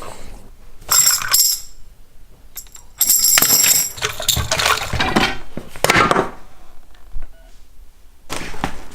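Metal clinking and jingling in several short bursts, the loudest about a second in and about three seconds in.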